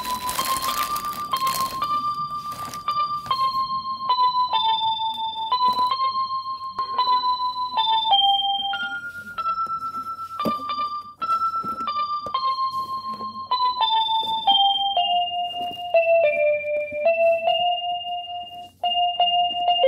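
Background music: a slow melody of single held electric-piano notes that drifts gradually downward, with a brief rustling noise near the start.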